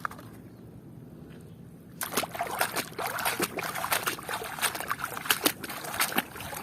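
Water splashing and sloshing as plastic toy construction vehicles are scrubbed and moved about in a basin of water. It starts suddenly about two seconds in, as a busy run of irregular splashes and clicks.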